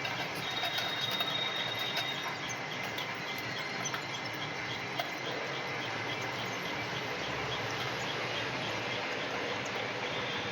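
Lathe running as a round plate is turned on it, a steady grinding machine noise with a light regular tick about four times a second. A faint high whine is heard in the first two seconds.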